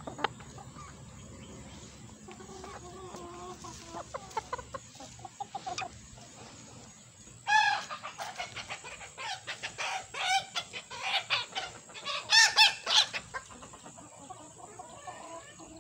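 Flock of backyard chickens clucking: soft low clucks at first, then louder squawking calls from about halfway, loudest a little before the end.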